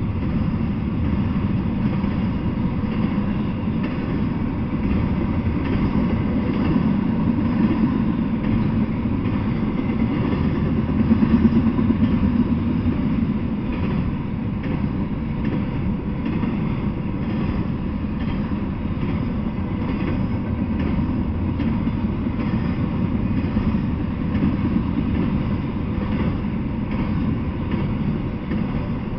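Double-stack intermodal freight train rolling past: a steady low rumble of wheels on the rails, swelling a little about midway.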